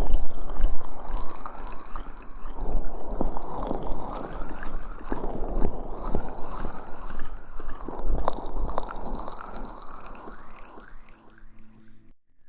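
Aloe vera gel being massaged over an ASMR microphone's ear cover, with wet, sticky squishing in repeated rubbing strokes and small clicks, processed with an echo effect. It fades out shortly before the end.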